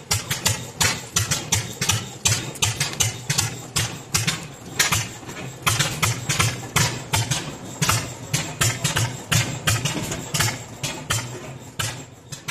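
Several antique flywheel stationary gas engines running together, their exhausts popping in an irregular, overlapping beat of about three to four sharp pops a second over a low rumble.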